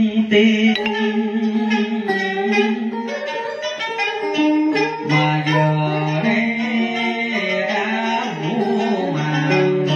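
Vietnamese cải lương music: plucked-string accompaniment with sustained notes and a singing voice.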